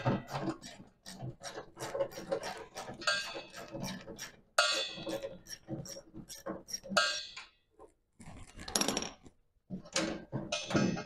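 3/8-inch ratchet on an extension clicking in quick runs as a fastener is turned, with light metallic clinks and ringing between the runs.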